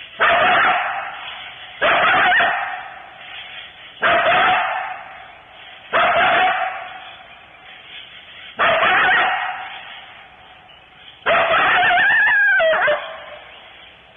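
Coyotes barking, a harsh call repeated about every two seconds, each one cutting in suddenly and fading away. Near the end comes a longer bark-howl whose pitch bends and falls.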